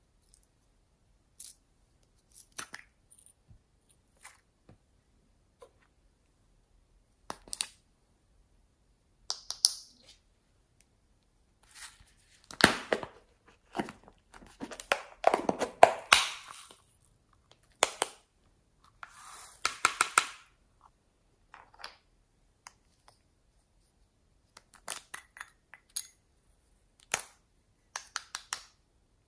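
Hands handling small plastic items and packaging: scattered sharp clicks and taps, with a few seconds of tearing and crinkling in the middle and quick clicks of small caps near the end.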